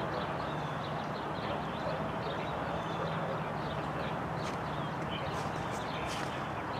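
Many small birds chirping, with quick high calls overlapping throughout, over a steady low hum.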